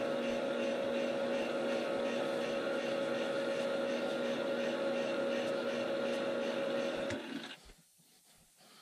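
Lathe motor running steadily with a foam blank spinning in its chuck, then switched off about seven seconds in, its hum dying away within about half a second.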